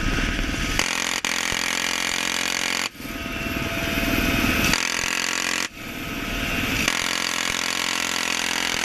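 Bell UH-1Y Venom helicopter running, with its turbine whine and rotor noise, in a string of short clips that cut abruptly from one to the next every second or two.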